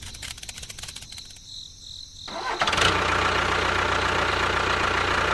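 A small engine starting: rapid even ticking for about a second and a half, a short pause, then the engine catches about two and a half seconds in and runs steadily.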